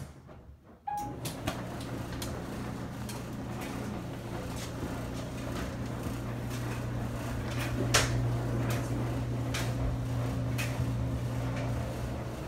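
Front-load clothes dryer starting: a short beep from its control panel about a second in, then its motor hums steadily as the drum turns, with irregular knocks from the tumbling load.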